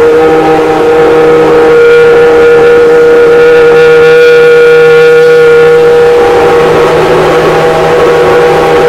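Peugeot V10 engine of a three-seater Formula 1 car running at a high, steady idle, very loud, swelling a little for a few seconds in the middle.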